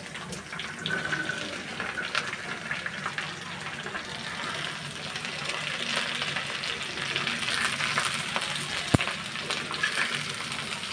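Diced pumpkin and other vegetables sizzling in hot oil in a frying pan, stirred with a metal spatula that clicks and scrapes against the pan. A single sharp knock comes about nine seconds in.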